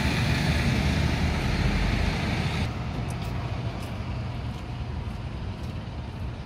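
Steady street traffic noise, a hum with no distinct events, dropping in level about two and a half seconds in.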